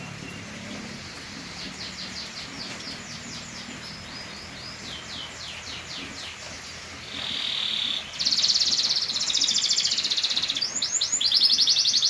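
Domestic canary singing: phrases of quick down-slurred notes, then a buzzy held note about seven seconds in, and from about eight seconds a louder, fast rolling trill followed by rapid sweeping notes.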